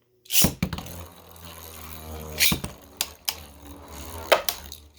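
Two 3D-printed Beyblades spinning in a plastic stadium. A sudden clatter about half a second in is followed by a steady whir, broken by a few sharp clicks as the tops strike each other.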